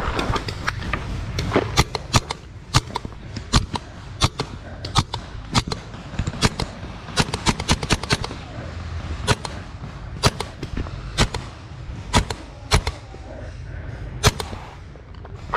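Paintball markers firing: dozens of sharp pops at irregular intervals, some in quick runs of two or three, over a steady low rumble.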